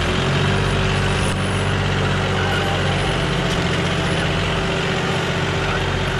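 John Deere 5065E tractor's three-cylinder diesel engine running steadily under load as it pulls a disc harrow through dry soil.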